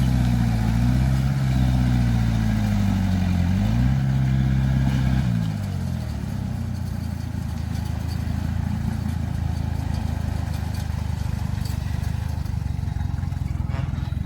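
Heavy diesel engine running hard, its pitch wavering and dipping, then easing off about five seconds in to a lower, steadier running.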